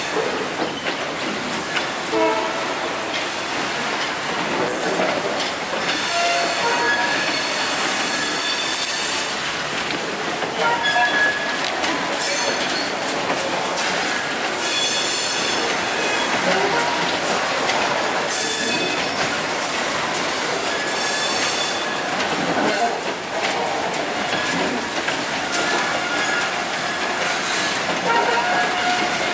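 Freight train of covered box wagons rolling past close by: a steady rumble and clatter of wheels over the rail joints, with brief high wheel squeals every few seconds.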